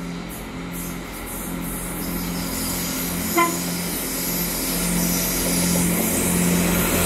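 Great Western Railway Class 166 Turbo diesel multiple unit approaching, its diesel engines growing louder as it nears. Its horn gives one short toot about halfway through.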